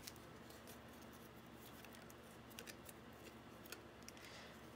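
Near silence with a few faint light clicks a little past the middle, as a rubber band is stretched and wrapped around a small block of wood.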